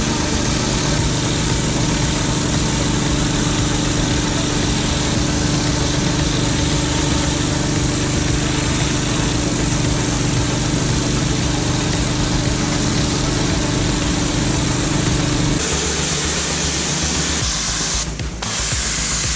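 Pressure washer's engine running steadily under the hiss of the high-pressure water jet spraying on paving. About three quarters of the way through, the engine hum drops away, leaving mostly the spray hiss.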